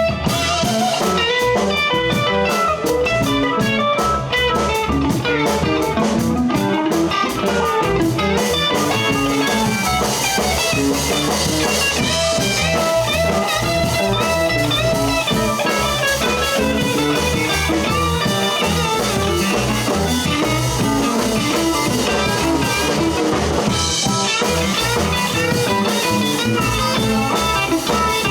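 Live blues band playing, with an electric guitar taking a solo over the drum kit and the rest of the rhythm section.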